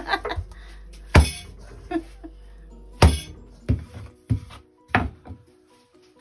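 Background music with a simple melody, over several sharp knocks: two loud ones about a second and three seconds in, then a run of lighter knocks.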